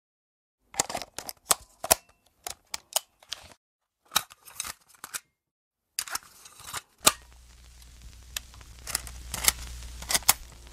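Irregular sharp clicks and taps in short runs, broken by brief silences, with a low steady hum coming in about seven seconds in.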